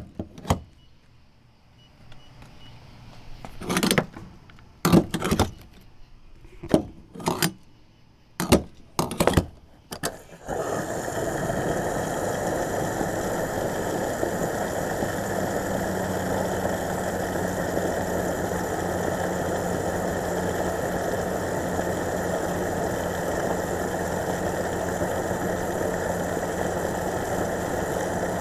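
Gas pump fill-up: a series of sharp clicks and clunks, then, about ten seconds in, a steady rushing and whirring as fuel starts flowing and runs on without change.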